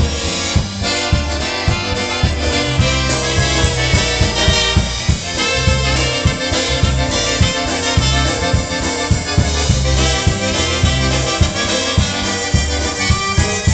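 Live band playing an instrumental passage: accordion and concertina carry the tune over electric bass notes on a steady beat.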